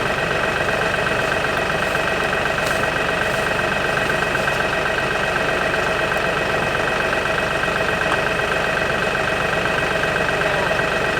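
Tractor engine idling steadily, holding one even pitch with no revving.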